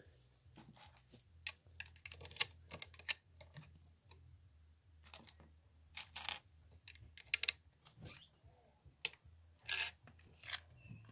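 Small plastic LEGO plates and bricks clicking and clattering as they are handled and pressed together, in irregular clicks with a dense run about two seconds in.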